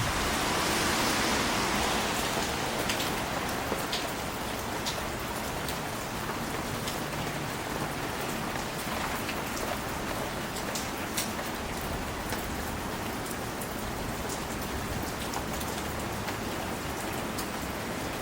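Steady rain with a continuous hiss, a little louder in the first couple of seconds, and scattered sharp ticks of single drops hitting close by.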